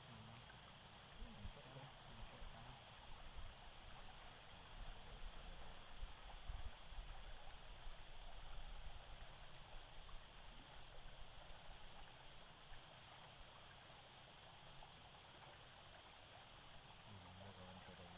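Steady high-pitched chorus of insects such as crickets, with low rumbling noise during the first half.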